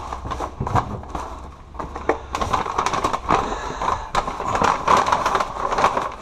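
Paper and padded envelopes rustling and crinkling as hands rummage through a bin of papers, with many small crackles.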